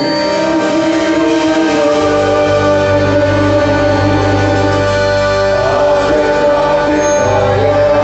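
Music for a quadrilha junina dance: a singing voice over held chords, with a strong bass coming in about two seconds in.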